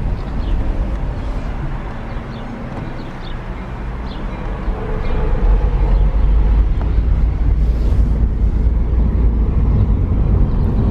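Vehicle on the move: a steady low rumble of engine and road noise that grows louder about halfway through.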